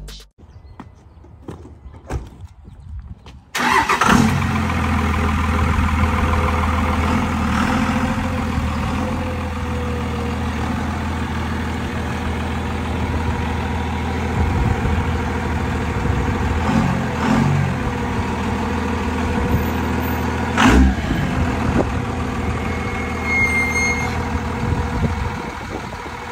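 A lifted second-generation Dodge Ram pickup's engine starts about three and a half seconds in and then idles steadily. There is a single sharp thump about twenty-one seconds in.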